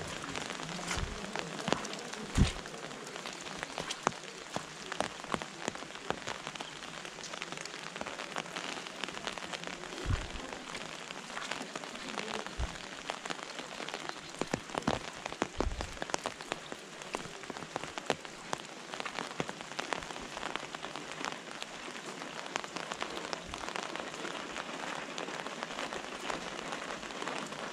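Light rain falling on an umbrella held overhead: a steady hiss of rain thick with many sharp individual drop hits. A few dull thumps stand out, the loudest about two seconds in.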